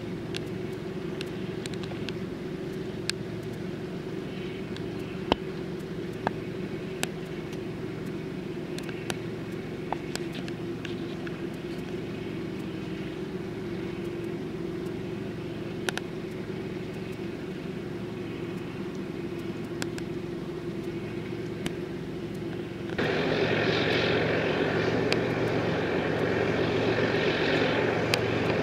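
Steady drone of engines and machinery around a fishing boat and quay cranes, with scattered light clicks and knocks. About five seconds before the end it jumps abruptly to a louder, hissier engine noise.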